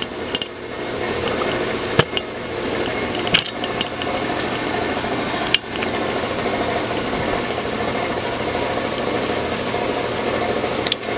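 Lapidary slab saw running steadily, its electric motor and diamond blade humming through a cut. A few sharp knocks from the camera tripod being moved break in during the first half.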